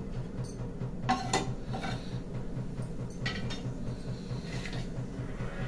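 Stainless-steel kitchen containers clinking and knocking several times as a spice box and its bowls are handled, over a steady low hum.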